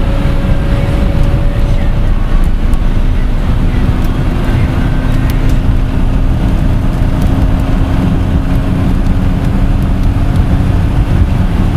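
Loud, steady engine and road noise inside a car cruising at highway speed, with a low engine drone holding a nearly steady pitch.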